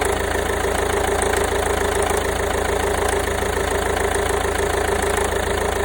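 Peugeot/PSA 1.5 HDi (DV5RC) four-cylinder diesel engine idling steadily, with a constant mid-pitched whine.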